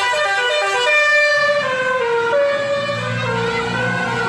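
Basuri musical bus horn playing a tune: a string of loud horn notes stepping up and down in pitch several times a second, with a low rumble under the last second or so.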